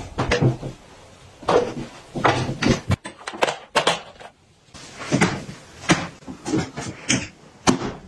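Irregular clunks and clicks of handling a compact clothes dryer: its round door being opened and closed, and a plug pushed into a power strip.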